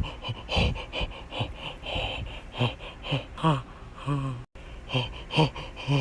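A person making a string of short, breathy gasping sounds, about two a second, each with a bending pitch.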